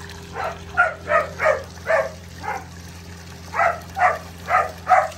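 Husky giving a string of short, pitched yips and whines, about ten in two quick runs, over a steady low hum.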